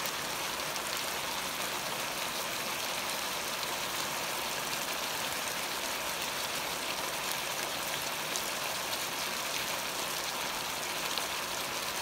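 Chicken and tomato gravy in a pot on high heat, sizzling and bubbling steadily with fine crackles as it reduces.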